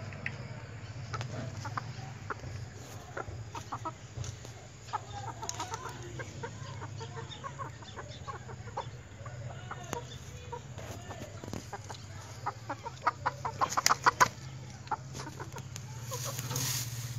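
White Silkie chickens clucking, with short calls scattered throughout and a quick run of louder clucks about three quarters of the way in. A steady low hum runs underneath.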